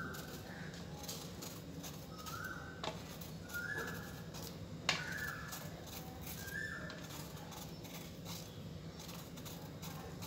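A small kitchen knife stripping the ridges off a ridge gourd by hand, with two sharp clicks of the blade about three and five seconds in. Short, high, whistle-like chirps, each rising and then holding briefly, come every second or so.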